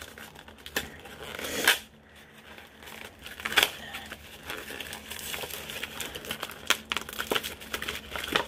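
Packaging crinkling and rustling as a boxed set of makeup face brushes is opened by hand, in irregular crackles with a louder rustle just under two seconds in and a sharp crackle at about three and a half seconds.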